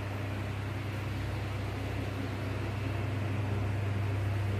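Steady low electrical hum with a constant hiss under it, growing a little louder near the end.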